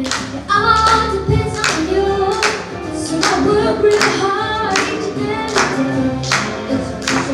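A girl singing into a handheld microphone over a recorded backing track with a steady beat about every 0.8 seconds.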